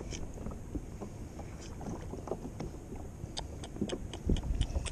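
Water lapping against a kayak on the sea, with scattered small, irregular knocks and clicks.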